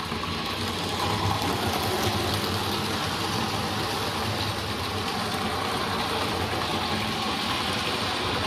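Model railway locomotive running at speed on a loop of track: the Tri-ang Hornby engine's new 5-pole skew-wound motor with flywheel whirring as its wheels and a rake of five coaches run over the rails. It is a steady running noise that gets a little louder about a second in as the controller is turned up to about 60%.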